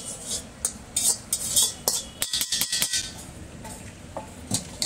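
Metal spatula scraping and clicking against an iron wok as a rice mix is tipped out, in irregular bursts of short scrapes and clicks, thickest in the first two seconds with a few more clicks near the end.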